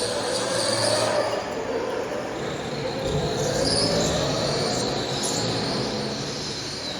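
Go-karts running on a track, their engine pitch slowly rising and falling as they accelerate and pass, with a high whine over the engine noise.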